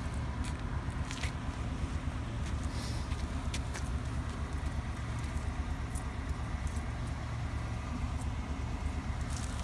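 Mitsubishi G510L small single-cylinder engine running steadily on a crawler carrier, with a fast, even low throb and a few light rattling clicks.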